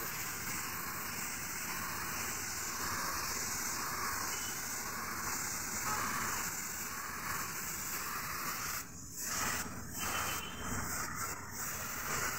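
Gravity-feed compressed-air spray gun hissing steadily as it sprays yellow paint. About nine seconds in, the hiss breaks into several short bursts.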